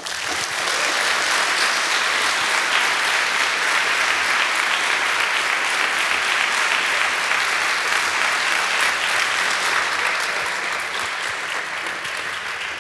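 Audience applauding, a dense, steady clatter of many hands clapping that begins at once and eases off slightly near the end.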